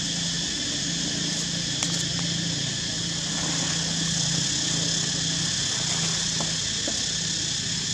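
An engine runs steadily with a low hum that drops out briefly a few times, over a steady high hiss.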